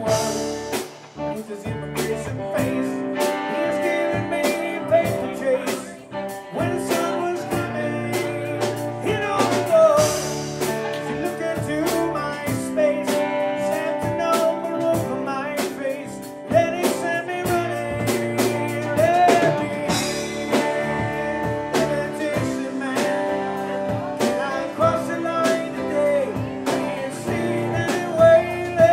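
Live blues-rock band playing: electric guitar, bass guitar, drum kit and keyboard, with a steady beat.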